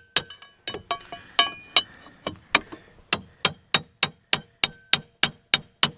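Hammer striking metal, evenly about three blows a second, each with a short metallic ring, broken by a stretch of lighter, uneven clinks and taps about a second in. The blows are meant to knock a stuck part loose on the snowmobile.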